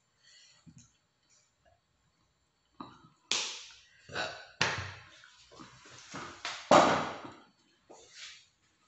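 Quiet at first, then a drink bottle is knocked down onto a glass-topped table about three seconds in, followed by a run of sharp knocks and clatter as the dishes and satay skewers are handled, the loudest a little past the middle.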